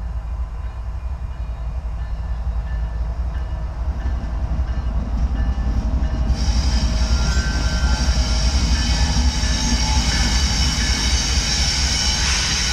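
Two CSX diesel-electric locomotives, a GE ET44AH leading and an EMD SD60I trailing, moving slowly past at close range. Their low rumble grows louder as they approach, and about six seconds in a steady high hiss joins it as the lead unit comes alongside.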